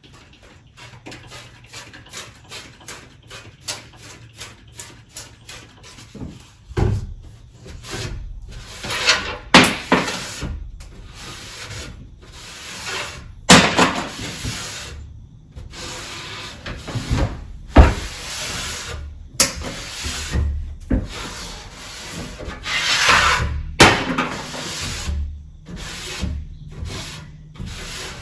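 Wooden closet shelves being scrubbed by hand: quick light rubbing strokes at first, then heavier, irregular scrubbing passes with a few sharp knocks against the wood.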